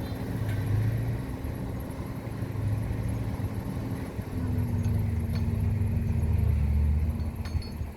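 Engine running steadily: a low hum with a steady tone that drops slightly in pitch about halfway through and gets louder in the second half.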